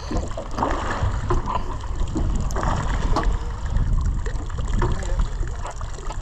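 Wind rumbling on the microphone over water sloshing against the hull of a small fishing boat at sea, with irregular swells of noise.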